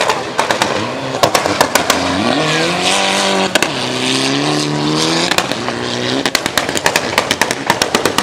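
Mitsubishi Lancer Evolution rally car's turbocharged four-cylinder accelerating hard, its pitch climbing, dropping at a gear change a little after three seconds and climbing again. Rapid anti-lag pops and bangs crackle off the exhaust in the first second and again over the last two seconds.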